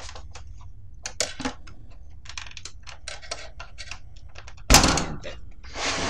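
Plastic clicks and rattles as the front bezel of an HP Pavilion s3000 slimline desktop is worked free of its clips. A loud thunk comes near the end, followed by a short scrape.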